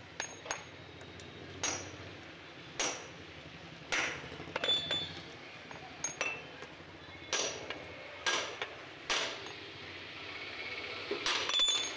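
Ball-peen hammer tapping on the steel pivot pin of an auto-rickshaw's front fork, seating the newly fitted pin. About a dozen sharp metallic strikes come roughly a second apart, a few with a brief high ring, and a quick cluster of taps comes near the end.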